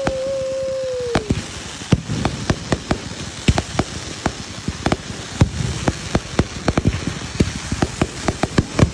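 Fireworks going off: a steady whistle fades out about a second in, then a dense run of irregular crackling pops and bangs.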